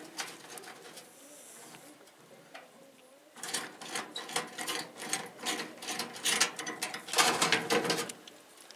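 A metal C-clamp being worked by hand onto the galvanized sheet-metal edge of a feeder: a rapid, uneven run of light metallic clicks and rattles starting about three seconds in, busiest near the end.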